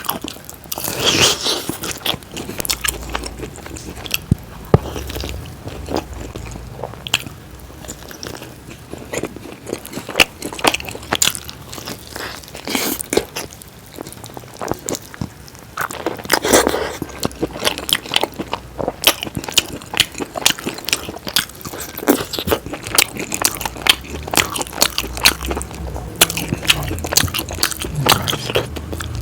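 Close-miked eating: a person biting and chewing chicken curry with puri, with many sharp, irregular mouth clicks and a few louder bites.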